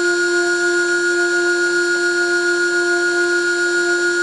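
CNC-controlled benchtop lathe running as it turns a wooden workpiece: a steady whine made of several high tones that does not change.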